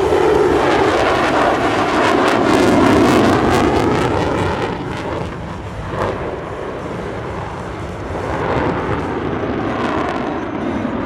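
Jet noise from the F-22 Raptor's twin Pratt & Whitney F119 turbofans, with a sweeping, phasing quality as the fighter flies past. It is loudest for the first few seconds, eases off around the middle, and swells again near the end.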